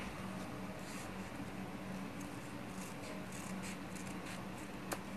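Scissors cutting satin ribbon tails to even them up: faint scattered snips and ribbon rustling, with a sharper snip near the end.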